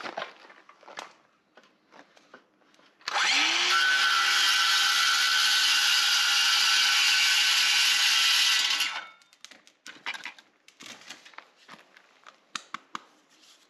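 Circular saw spinning up with a rising whine about three seconds in, cutting through PVC pipe for about six seconds, then stopping. Light clicks and knocks of the short cut pipe pieces being handled come before and after.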